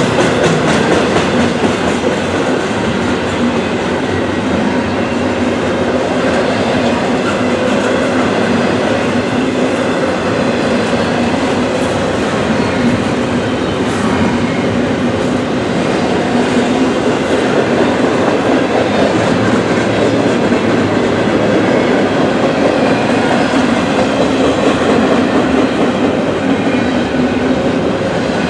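Norfolk Southern freight train's cars rolling steadily past at a grade crossing: a continuous loud rumble and clatter of steel wheels on the rails.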